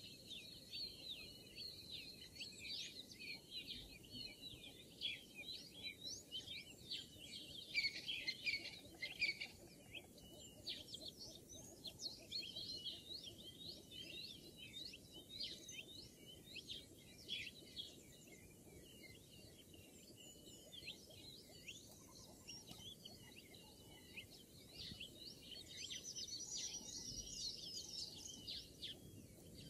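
Faint chorus of small birds chirping and twittering, a dense stream of short high chirps, busiest near the end.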